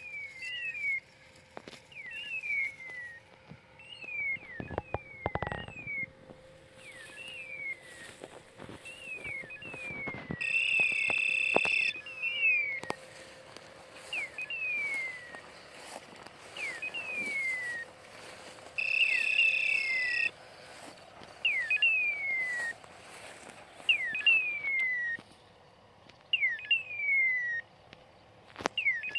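A bird-like chirping call repeated at a steady pace: groups of about three short, quickly falling chirps, one group roughly every second and a half. Twice, a longer, even electronic-sounding beep of a second or more cuts in.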